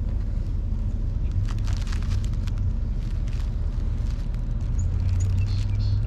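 Packaging being handled: scattered crinkles and clicks of paper and plastic as a shipping box is gone through, over a steady low rumble.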